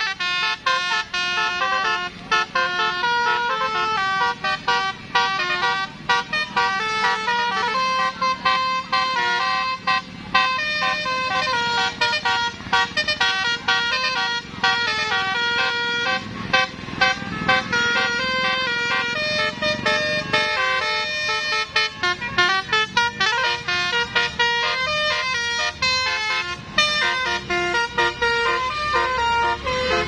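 Bus telolet horn playing a fast melody, its notes jumping from pitch to pitch without a break.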